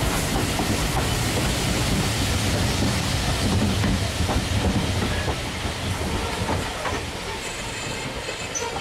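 Railway passenger coaches rolling past close by: a steady low rumble with the wheels clicking over rail joints, easing slightly near the end.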